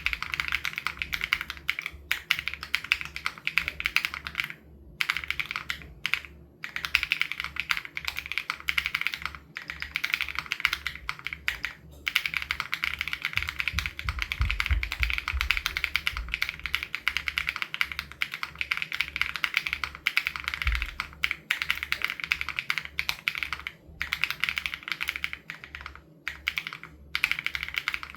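Continuous fast typing on an SPM AL87B custom mechanical keyboard fitted with BSUN Raw switches: a dense run of key clicks broken by a few brief pauses.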